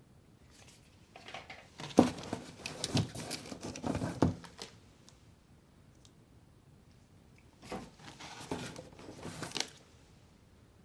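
Packaging being unwrapped by hand, crinkling and tearing in two bouts of rustling, the second starting a few seconds after the first ends.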